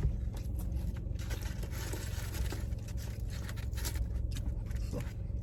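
Close-up eating sounds: chewing and mouth smacking on fried seafood, an irregular scatter of small wet clicks and crunches over a steady low hum.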